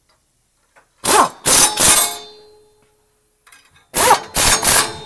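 Cordless impact wrench hammering on a bolt under the automatic transmission. It runs in two sets of three short bursts about three seconds apart, with a metallic ring lingering after each set.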